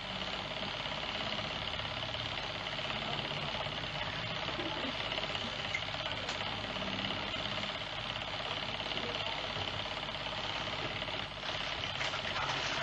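Steady mechanical whirring hum and hiss with a fine, fast rattle running on without change, dipping briefly in level near the end.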